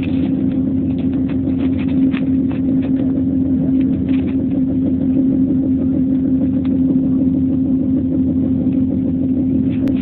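Motor vehicle engine running at a steady, constant pitch with low rumbling road noise underneath.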